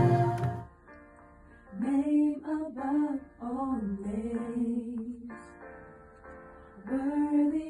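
A solo voice sings a slow gospel melody in short, wavering phrases over soft, steadily held accompanying notes. A louder full-bodied passage cuts off within the first second.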